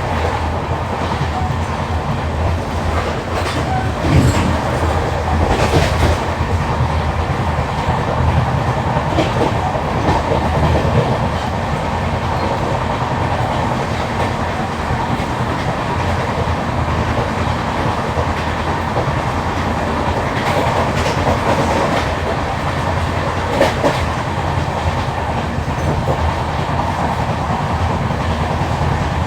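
Running LHB passenger coach, with a fast, steady rhythmic thudding from a wheel with a flat spot striking the rail on every turn, over the continuous rumble and clatter of wheels on track. A few sharper clacks stand out now and then.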